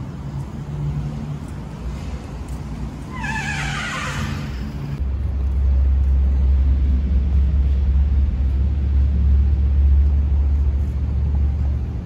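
Wind buffeting the microphone: a loud, steady deep rumble that starts abruptly about five seconds in. Before it there is a low hum, and a brief falling, whistle-like squeal about three seconds in.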